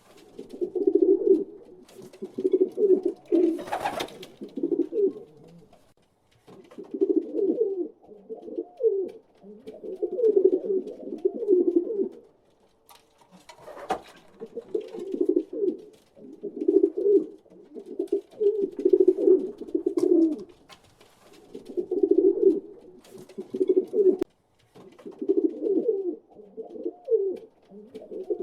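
Pigeons cooing in repeated low phrases, one after another with short gaps. Two brief noisy bursts come through, about four and fourteen seconds in.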